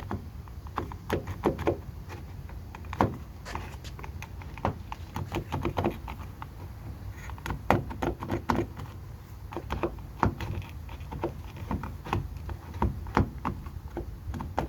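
Irregular clicks and light knocks of a 2008 Toyota Tundra's exterior door handle being lifted and slid backwards out of the door, over a steady low background rumble.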